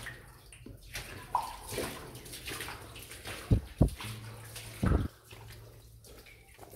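Footsteps wading and splashing through shallow water on a rock tunnel floor, one irregular step after another, with a few heavy low thumps between about three and a half and five seconds in.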